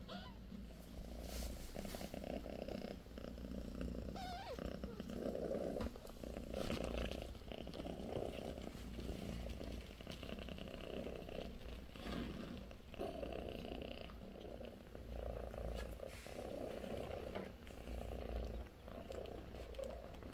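British Shorthair cat purring steadily, the low rumble swelling and easing with each breath about every one to two seconds.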